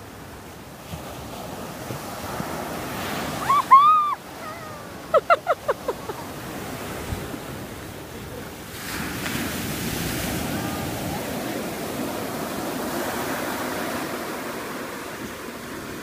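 Ocean surf breaking and washing up the beach, a steady rush that grows louder about nine seconds in. A short exclaiming voice sounds about four seconds in, and a quick run of short vocal bursts follows just after five seconds.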